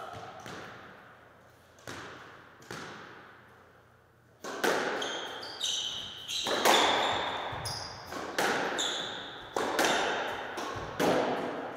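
Squash ball hits in a rally: racquet strikes and sharp smacks off the walls and hardwood floor, each one echoing around the enclosed court, with shoes squeaking on the floor. A few lighter, sparser knocks come first, then the hits come quickly from about four and a half seconds in.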